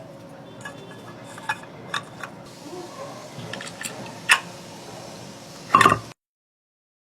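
Scattered light clicks and clinks of small hard parts being handled, with a louder clatter about six seconds in, after which the sound cuts off abruptly.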